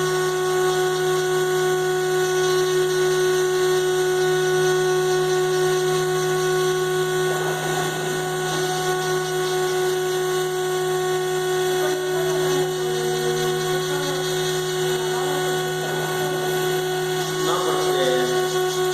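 CNC router spindle running steadily, a constant machine whine made of several fixed tones, with faint voices in the background.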